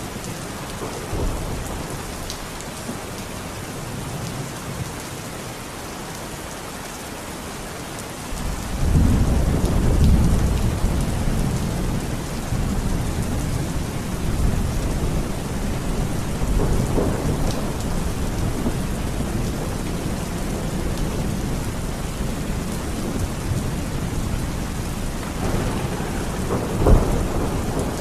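Heavy rain falling steadily. About a third of the way in, a long roll of thunder swells up and keeps rumbling, with a sharper thunderclap near the end.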